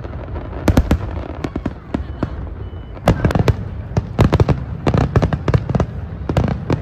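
Fireworks going off in rapid volleys of sharp bangs and crackles, one cluster about a second in and a denser run from about three seconds on.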